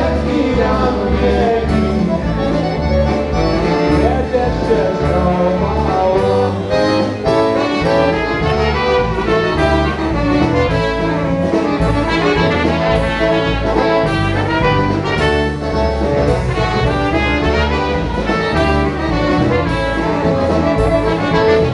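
Live polka band playing a polka: horns carrying the melody over a steady, even bass beat.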